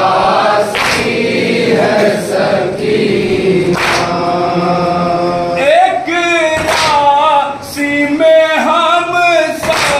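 Male voices chanting a nouha lament together, then a single male reciter taking the line alone from about six seconds in, his voice wavering with vibrato. A few sharp slaps of chest-beating (matam) fall in among the singing.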